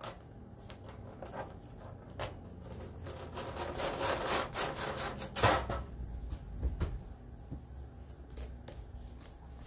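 A sticky silk-screen transfer being peeled off a plexiglass surface: a rustling peel builds about three seconds in and lasts a couple of seconds, followed by fainter clicks and knocks of handling.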